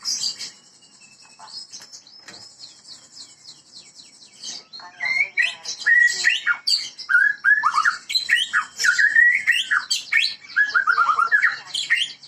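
White-rumped shama (Medan murai batu) singing: fainter rapid high trills at first, then from about five seconds in loud, varied whistled phrases sliding up and down.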